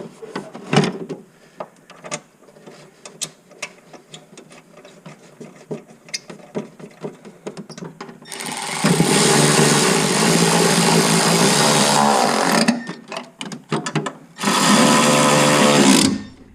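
Power drill driving a screw home: the motor runs for about four seconds, stops, then runs again for about two seconds near the end. Light clicks and handling knocks come before it.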